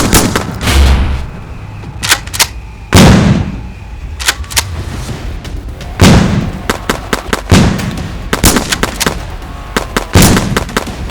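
Gunshot sound effects during a Nerf blaster fight: a string of sharp shots, several with a heavy booming tail, a second or more apart, with lighter cracks in between.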